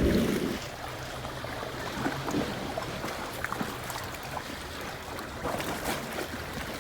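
Harbour-shore water ambience: small waves lapping, with a faint low steady hum for the first few seconds and a few light clicks.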